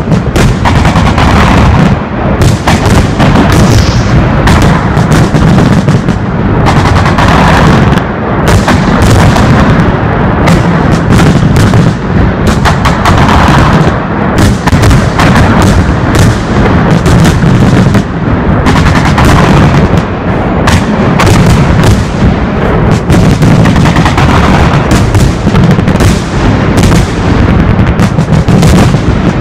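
Fireworks salute heard from close range: a dense, continuous barrage of bangs and bursting shells, overlapping with no let-up.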